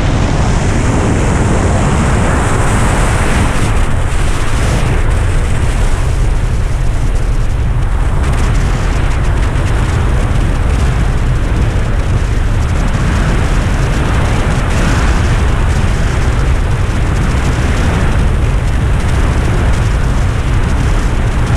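Loud, steady wind noise: rushing air at flying speed buffeting the camera microphone during a BASE jump in a tracking suit.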